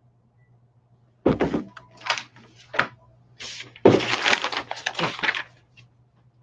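Comic books and their packaging being handled: paper and plastic rustling and crinkling in several short bursts, with a sharp start a little over a second in and the loudest stretch about four seconds in.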